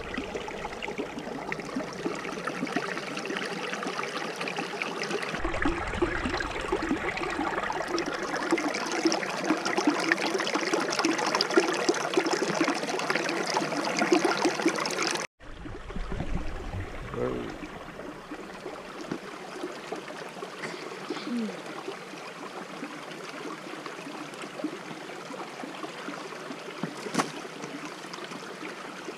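Shallow rocky forest stream trickling and babbling over stones close to the microphone. It is louder for the first half, breaks off suddenly about fifteen seconds in, and carries on more softly.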